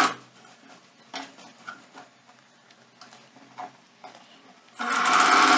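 Singer Facilita electric sewing machine stops stitching right at the start, leaving faint rustling and small clicks as the fabric and elastic are stretched and repositioned under the presser foot. Near the end the machine starts running again, sewing a straight-stitch seam on the elastic waistband; this is the loudest part.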